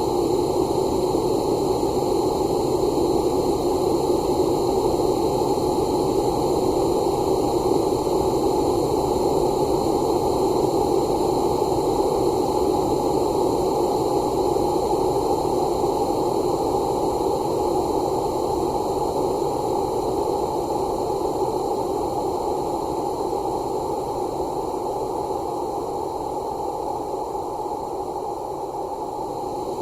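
Xiaomi phone notification sound time-stretched to two minutes, heard as a steady, static-like drone with no distinct notes. It dips slightly in loudness near the end.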